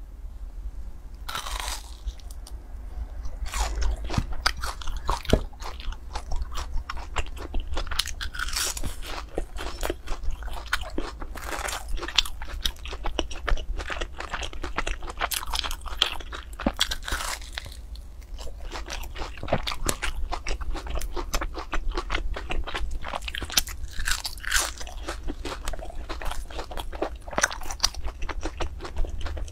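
Close-miked crunching and chewing of deep-fried, breadcrumb-coated glutinous rice cakes (baojiang ciba), with many sharp, irregular crunches of the crisp crust as they are bitten and chewed.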